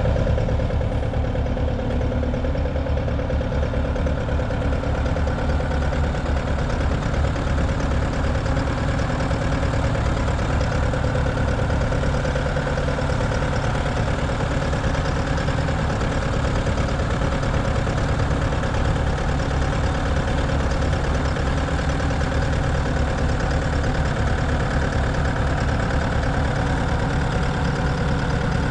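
Bobcat 3.4 L turbo diesel engine of a 2017 Bobcat T750 tracked skid steer idling steadily with a rapid low chug, never revving up. The machine is listed as one that will not throttle up.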